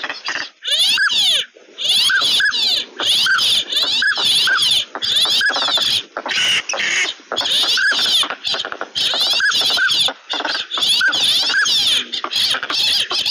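A flock of ducks calling nonstop: dense nasal chatter with short rising-and-falling whistles about once a second, the whistles of drake northern pintails.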